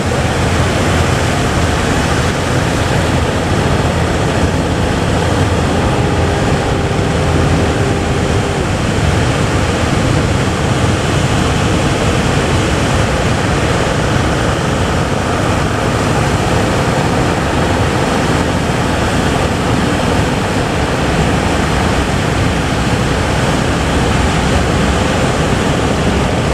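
Big waves breaking: a loud, steady rushing noise.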